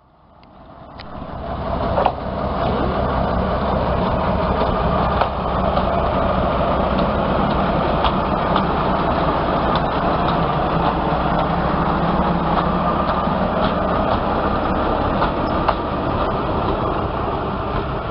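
TU4 narrow-gauge diesel locomotive with its V12 diesel engine running as it rolls past close by, with scattered light clicks from the running gear on the rails. The sound rises over the first two seconds, then holds steady.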